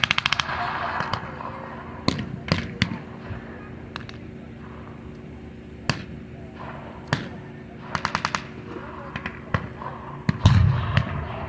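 Blank-fired WWII small arms in a battle reenactment. A rapid burst of machine-gun fire comes at the start and another about eight seconds in, with scattered single rifle shots between them. A louder, deeper bang comes near the end.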